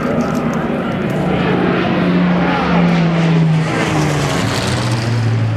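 Hawker Hurricane's Rolls-Royce Merlin V12 engine passing low overhead, its note dropping in pitch in the second half as the plane goes by.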